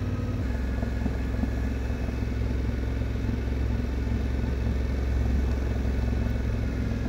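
Yamaha Ténéré 700's parallel-twin engine running steadily at low road speed, heard from the rider's seat as a constant low hum.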